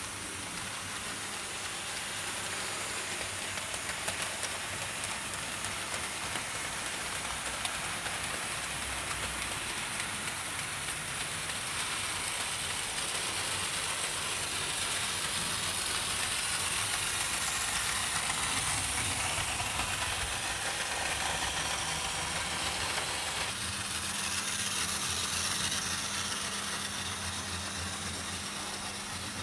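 00 gauge model trains running round a layout: a steady whirring of electric motors and wheels on the track, growing louder through the middle as a train passes close, with a low steady motor hum coming in about three-quarters of the way through.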